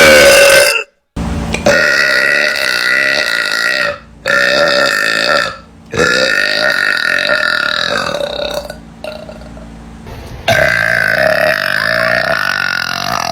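A girl belching very loudly, several long drawn-out burps in a row. One is already sounding at the start and then breaks off. Four more follow with short gaps between them, and the one in the middle trails off quieter before the last one starts.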